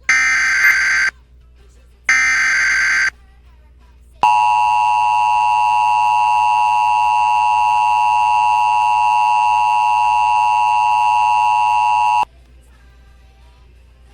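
Emergency Alert System signal: two SAME header data bursts, each about a second of buzzing digital tones a second apart, then the EAS attention signal, a steady two-tone 853/960 Hz alert held for about eight seconds that cuts off suddenly. This sequence marks the start of a broadcast emergency warning, here a tornado warning.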